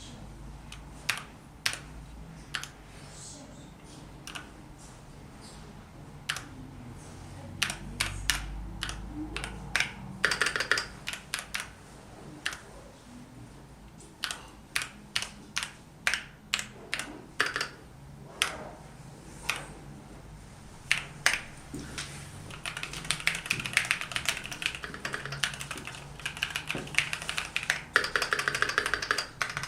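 Keychron Q3 mechanical keyboard with Keychron K Pro Mint switches being typed on: spaced single keystrokes at first, then fast runs of typing, densest in the last third.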